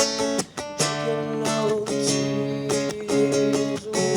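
Music with a strummed acoustic guitar, the chords struck in an even rhythm, with a voice faintly singing along.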